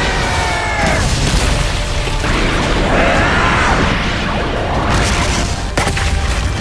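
Animated fight-scene soundtrack: music under a continuous din of booming and crashing impact effects, with a sharp hit a little before the end.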